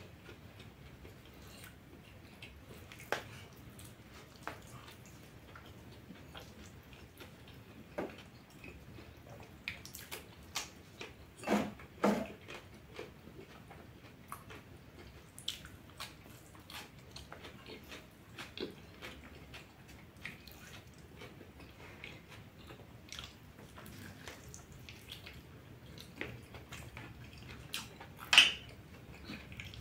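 Close-up chewing and wet mouth sounds of a man eating goat meat, noodles and vegetables by hand, with scattered soft clicks and smacks. A few louder clicks stand out, two about twelve seconds in and one near the end.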